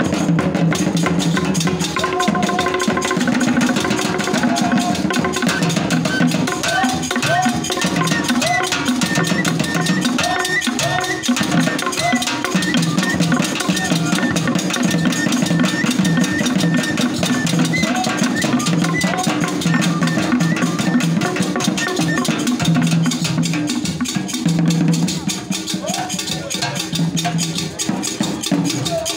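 Traditional Igbo drum ensemble playing a fast, dense, steady percussion rhythm for dancers, with a ringing bell-like beat over the drums.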